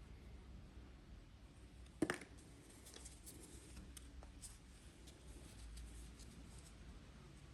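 Quiet room tone with a few faint handling ticks and one sharp click about two seconds in.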